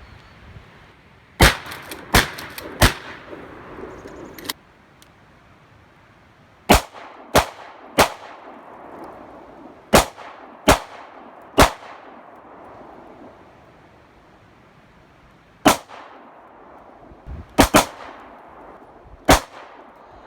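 Gunshots at a shooting range: about a dozen shots fired in quick groups of two or three, roughly two-thirds of a second apart, each trailing off briefly.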